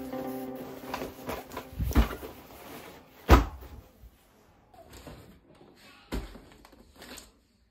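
Hard knocks and clacks of toys and packaging being handled, with the loudest knock about three seconds in, then softer scattered clicks. Background music with steady tones plays for the first couple of seconds, then stops.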